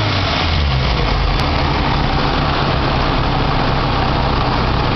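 Supercharged car engine idling steadily, a low even hum under a constant rushing hiss.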